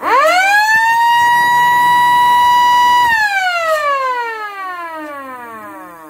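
Small 230 V electric motor siren (Kleinsirene MS 3) sounding one wail: its pitch sweeps up fast to a high steady tone, holds for about three seconds, then winds down in a long falling glide.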